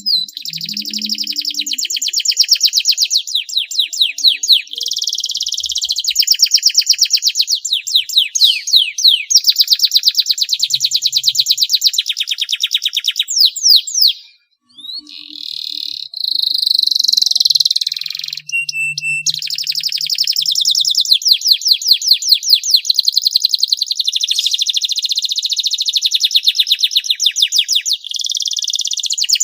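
Domestic canary singing a long song of rapid trills and rolls, phrase after phrase with only a brief break about halfway through.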